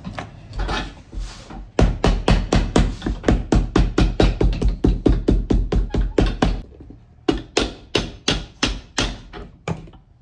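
Cobbler's hammer tapping a freshly glued, hot new leather sole down onto a boot on a last, bedding it onto the contact glue. Quick, even blows at about five a second, breaking off briefly about seven seconds in, then a second, shorter run.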